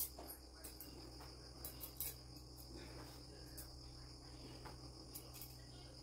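Faint crickets trilling steadily at a high pitch over a low steady hum, with a few light clicks scattered through.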